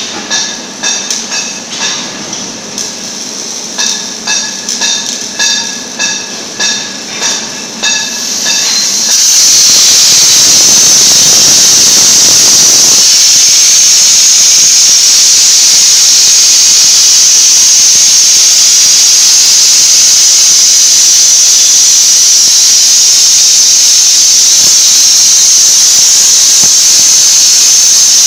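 Rhythmic pulsing machine tones, about one every two-thirds of a second. About nine seconds in, a Hypertherm XPR300 plasma torch on a CNC bevel cutting table strikes its arc and cuts steel plate with a loud, steady, high-pitched hiss. The hiss is fuller and lower for its first few seconds, then settles.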